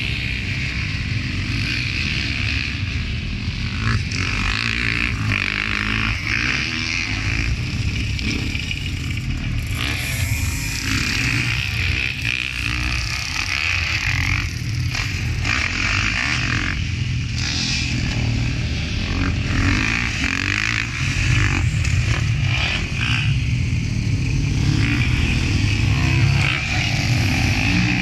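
Several motocross dirt bike engines revving and running around a track, the sound rising and falling as riders accelerate and pass, and getting louder near the end as a bike comes closer.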